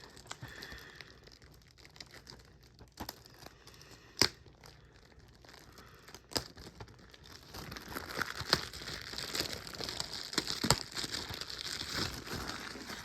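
Plastic shrink-wrap on a sealed DVD case being picked at and peeled off. A few sharp clicks and taps come first, the loudest about four seconds in, then steady crinkling from about halfway on.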